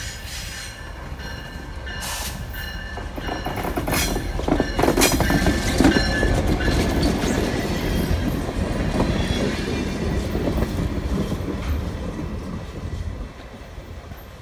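Short freight train with a diesel locomotive and empty gondola cars passing close by: engine rumble and wheels clanking and squealing on the rails, a few sharp clanks as it nears and the loudest part about halfway through. The sound drops off sharply near the end.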